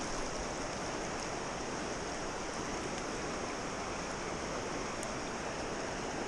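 Steady rush of flowing river water, an even hiss with no rise or fall.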